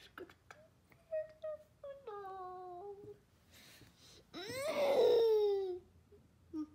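A young girl's wordless whining vocalisations: short whimpers, then a held, slightly falling whine, then a louder falling whine about four and a half seconds in. A few faint clicks sound in between.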